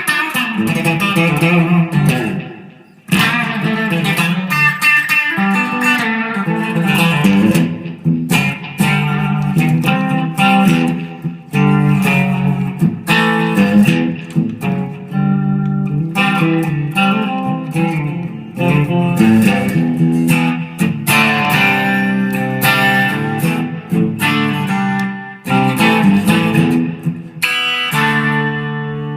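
Electric guitar, a 2010 Epiphone Les Paul Standard with Gibson Burstbucker 3 and '57 Classic humbuckers, played through an amp on a clean sound with no distortion. Chords and single notes are strummed and picked continuously, with a brief break about three seconds in.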